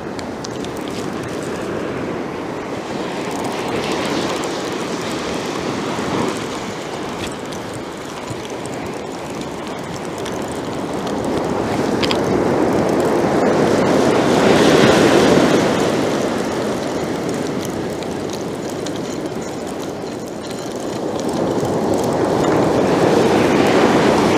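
North Sea surf breaking and washing up the beach: an even rushing hiss that swells and fades slowly, loudest about two-thirds of the way through and again near the end.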